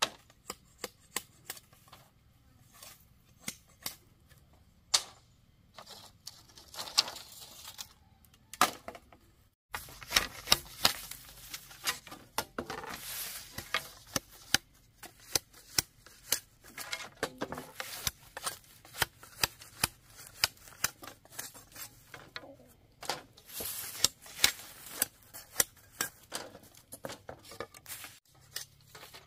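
Hand-tool work: an irregular run of sharp clicks and knocks, coming more densely after about ten seconds.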